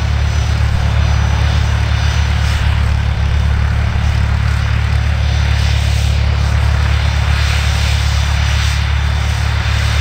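Aircraft engine running steadily: a loud, even, deep rumble with hiss above it, neither rising nor falling.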